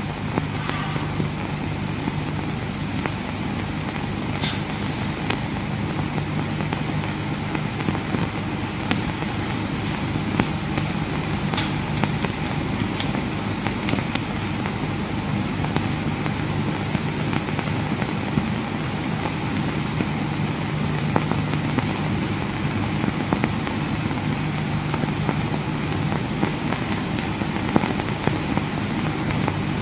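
Steady hiss and low hum of an old optical film soundtrack, with a few faint clicks and no speech or music.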